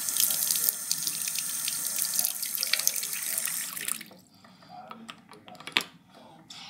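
Bathroom sink faucet running, water splashing into the basin, for about four seconds, then it stops. A sharp click follows a little before the end.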